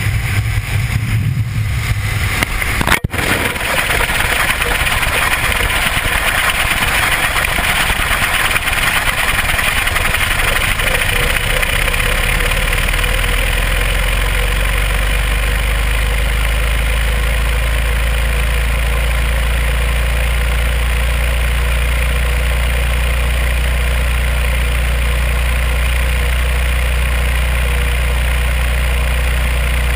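Wind rushing over a GoPro camera falling from a small airplane and spinning through the air. A sharp click comes about three seconds in, and from about twelve seconds a deep steady rumble joins the rushing.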